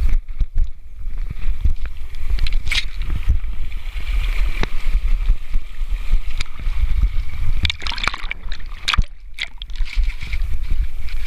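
Wind buffeting the microphone with a steady low rumble, over a faint continuous whir and scattered clicks from a spinning reel being cranked to retrieve a spoon lure.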